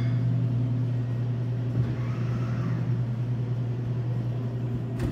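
Glass-front vending machine humming steadily as its delivery lift carries a glass Coca-Cola bottle down to the automatic pickup door. A loud knock comes right at the end.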